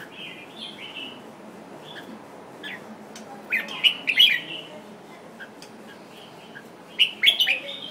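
Red-whiskered bulbul singing short, bright, warbling phrases, with a louder cluster of notes about halfway through and another near the end.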